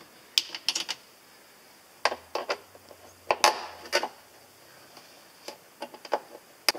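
Sharp clicks and light taps of a cable lug and an inline fuse holder being handled and fitted as a red power cable is fed through and connected, coming in several quick clusters.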